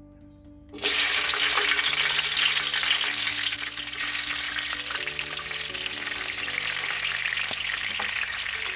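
Sweet peppers going into hot seed oil in a frying pan. A dense sizzle starts abruptly about a second in, is loudest for the next few seconds, then settles into a steady frying hiss.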